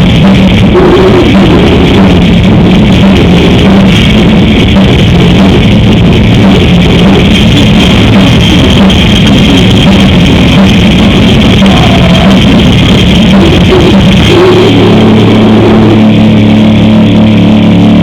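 A death metal/grindcore band playing live, very loud, with fast drumming under heavily distorted electric guitars. About fourteen seconds in, the drumming drops away and a held distorted guitar chord rings on.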